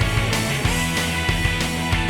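Rock music with electric guitar, heavy bass and a steady beat.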